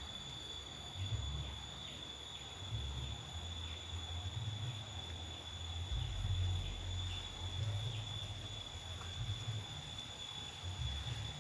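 Steady high-pitched insect drone over low, uneven rumbling on the phone's microphone.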